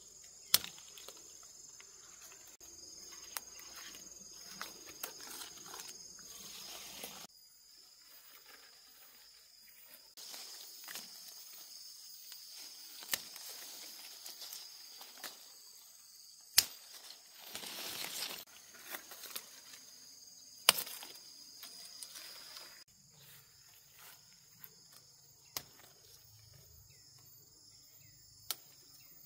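Insects chirring steadily in high continuous tones, with scattered sharp clicks and knocks. The background drops out and changes abruptly a few times.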